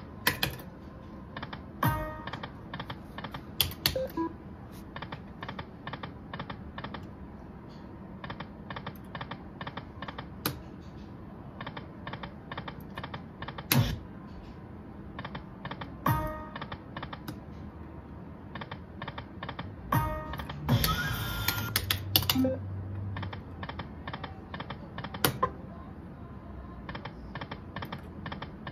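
Video slot machine's electronic spin sounds: runs of rapid, even clicking ticks as the reels spin and stop, repeated spin after spin. There is a louder hit about 14 seconds in, where a small win lands, and a short musical win jingle about 21 seconds in.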